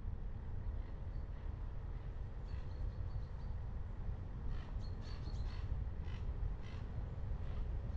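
Steady low rumble of a car driving along a country lane, with a crow cawing several times in the second half.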